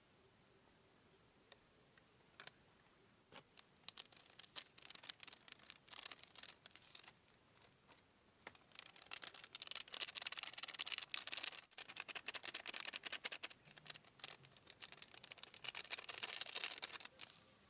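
Close rustling and crinkling with scattered clicks, coming in spells that are loudest in the middle and near the end.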